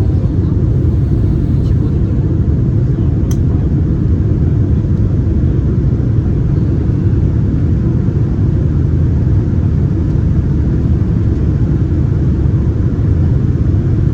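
Steady low cabin rumble of a Boeing 787 Dreamliner in flight, engines and airflow heard from a passenger seat, with a faint click about three seconds in.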